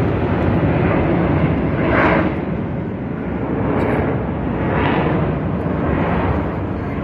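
Jet engines of the Frecce Tricolori aerobatic formation passing overhead: a steady, loud jet rumble that swells briefly a few times as the aircraft turn.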